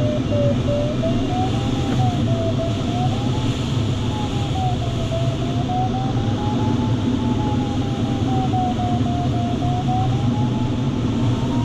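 Glider variometer's audio tone sounding continuously over steady airflow rush in the cockpit. The tone slides down, wavers up and down several times, then climbs again near the end, its pitch following the changing rate of climb or sink.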